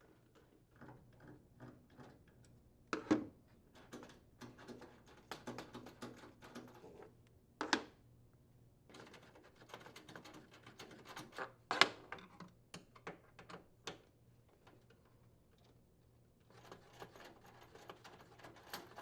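Runs of rapid clicking from a hand wrench unthreading the microwave's mounting bolts, with a few louder knocks against the metal cabinet and the oven housing.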